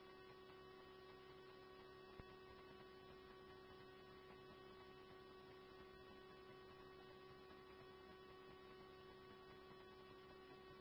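Near silence: a faint, steady electrical hum in the dead air between scanner radio transmissions.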